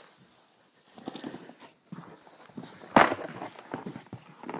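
Flaps of a large cardboard shipping box being pulled open and folded back, the cardboard rubbing and scraping, with one sharp, loud knock about three seconds in.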